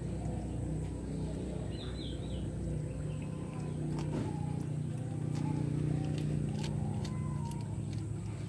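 A steady low mechanical hum, like an engine running, under sharp clicks from about four seconds on as an Asian palm civet chews its prey. A short high chirp comes about two seconds in.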